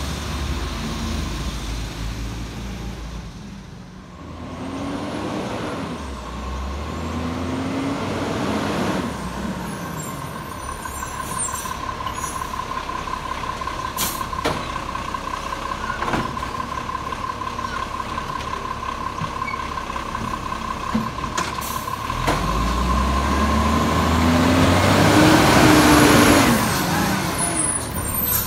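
Iveco Acco side-loader garbage truck's diesel engine revving as it pulls along, with a steady high whine through the middle and a few short air-brake hisses. Near the end the truck passes close by with a loud rush of engine and air.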